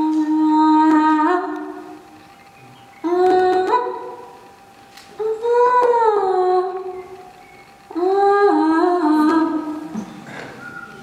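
Slow music of a woman's wordless voice singing long held notes that slide up or down, in four phrases of one to two seconds with short pauses between them.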